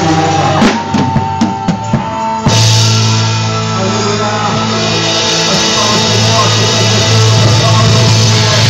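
Worship band music led by a drum kit: a run of separate drum hits over thinned-out backing for about two seconds, then the full band comes back in with sustained low notes.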